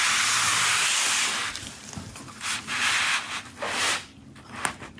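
Hissing noise in bursts: one long hiss of about a second and a half, then several shorter ones.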